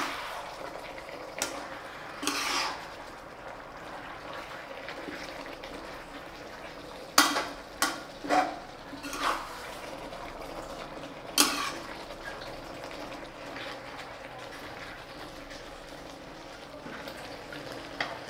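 Metal utensils clinking and knocking against pots and dishes while cooking: a handful of sharp separate clinks, most of them bunched in the middle, over a steady faint hiss.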